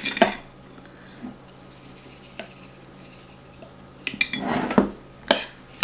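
A spoon scraping and knocking in a glass jar as sugar is scooped out, with a cluster of scrapes about four seconds in and a couple of sharp taps after it. Before that, a few seconds of quiet with only a faint low hum.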